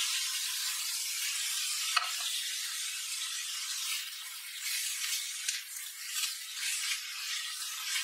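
Julienned burdock root sizzling steadily in a hot pan as it is glazed with soy sauce, sugar and syrup, with a sharp click about two seconds in. From about four seconds in, chopsticks toss the strips and the sizzle rises and falls.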